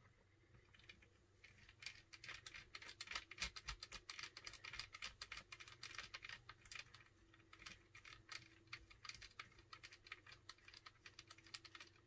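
Faint, rapid light clicking of a small T6 Torx screwdriver being twirled in the fingers, backing a screw out of a laptop's bottom panel. The clicking thickens about two seconds in and thins out near the end.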